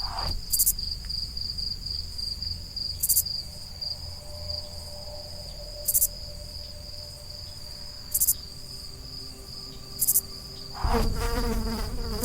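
Insects, cricket-like, chirring in a steady high-pitched trill, with a short, louder, higher pulse every two to three seconds. Near the end a lower pitched hum joins in.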